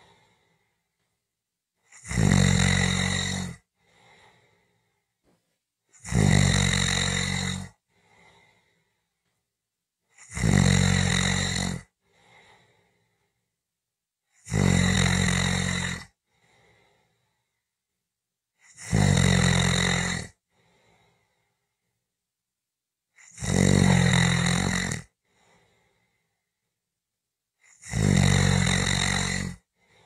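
Snoring in a slow, even rhythm: seven snores, each about a second and a half long and roughly four seconds apart. A faint short sound follows each one, with near silence between.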